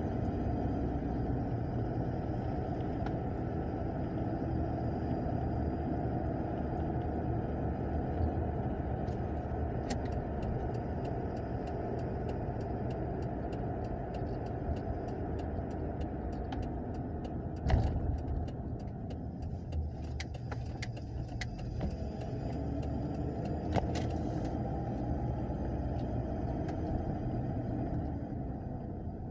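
Road and engine noise inside a moving car's cabin: a steady low rumble, with light ticks through the middle and a thump about two-thirds of the way in.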